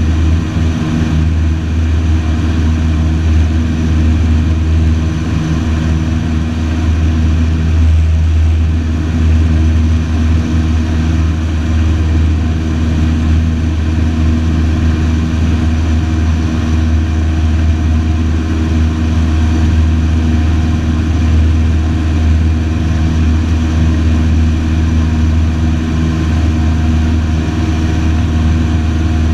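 A light single-engine aircraft's piston engine and propeller running steadily, heard from inside the cockpit in flight as an unbroken low drone.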